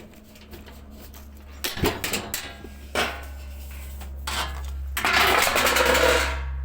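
Metal knocks and clatter from handling a washing machine's parts around its direct-drive motor, then a louder rattling scrape lasting about a second. A steady low hum runs underneath.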